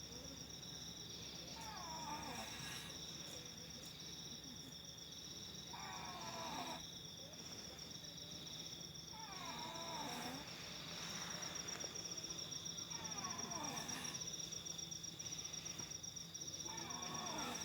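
A sleeping person snoring, one curving, pitched snore about every four seconds, five in all. Insects chirp steadily in the background.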